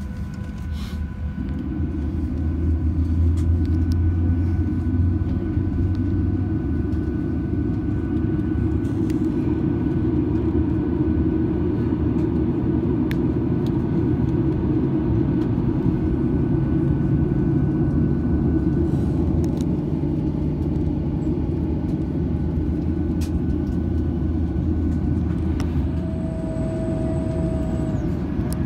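Cabin noise of a Boeing 737-900 taxiing: the CFM56 jet engines' low, steady rumble mixed with the rolling of the airliner, swelling about two seconds in. A brief steady whine sounds near the end.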